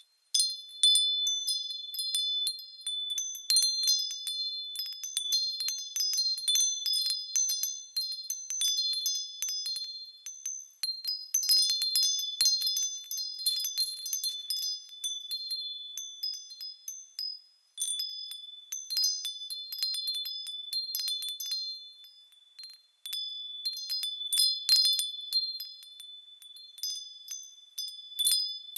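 Small high-pitched bells, wind-chime-like, swaying and tinkling in a continuous cascade of light strikes with overlapping ringing tones. The sound drops out abruptly a few times and starts again at once.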